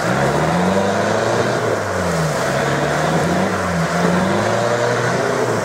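Modified off-road truck's engine revving up and down again and again, about once a second, as its mud tyres spin and churn through swamp mud.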